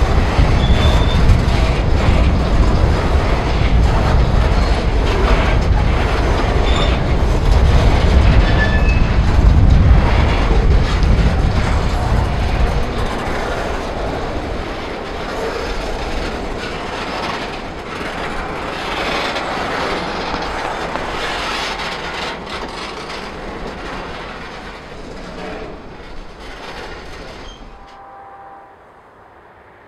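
Freight train of covered hopper cars rolling past close by: steady wheel-on-rail noise with clicking wheels and a few short, high wheel squeals. The noise fades over the second half and cuts off near the end.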